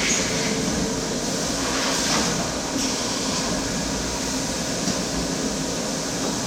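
CNC machine running steadily: a constant mechanical hum and hiss with a low rumble, and a few faint higher swells about two to three seconds in.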